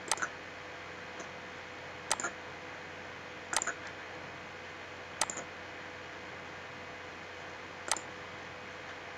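Computer mouse clicking: five sharp clicks spread out one to three seconds apart, some followed at once by a second click, over a steady low hiss.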